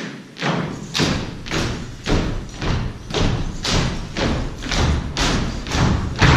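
Drill team striking the stage floor in unison: a steady run of loud thumps, about two a second, echoing in a large hall.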